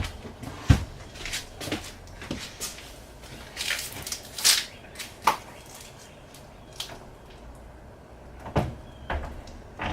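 RV refrigerator door being handled and fitted back onto its hinge: scattered knocks and clicks with some rustling, the sharpest knock about a second in.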